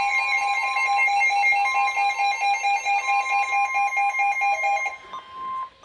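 Emergency Alert System attention signal: a loud, steady two-tone alert that cuts off about five seconds in.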